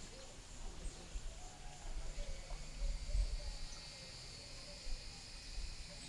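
Outdoor ambience of insects chirring with a steady high-pitched drone that grows stronger about halfway through, over a low gusty rumble on the microphone.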